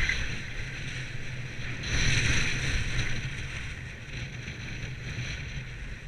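Skis sliding and scraping over packed piste snow, a steady hiss that swells for about a second around two seconds in, with wind rumbling on the camera's microphone.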